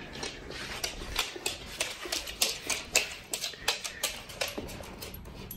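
Boxer puppy gnawing on a chew bone: an irregular run of sharp clicks and crunches from its teeth, several a second.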